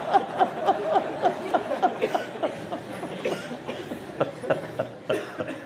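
Laughter: a quick string of short 'ha-ha' bursts that gradually dies down.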